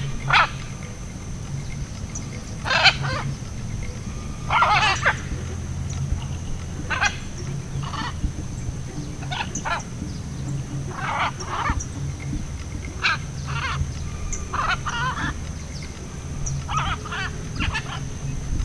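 A large bird giving harsh, raspy calls, about fifteen of them at irregular intervals and some in quick pairs, which the uploader guesses is a blue-and-yellow macaw. A steady low hum runs underneath.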